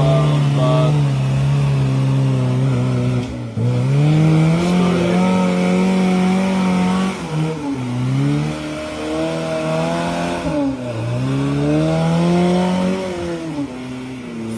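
Lifted off-road pickup truck's engine revving hard under load as it climbs a muddy slope. The pitch rises and falls, and the revs drop sharply and climb again three times.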